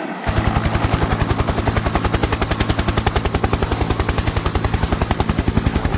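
Cartoon helicopter rotor sound effect: a fast, even chop of about thirteen beats a second over a low hum, cutting in just after the start.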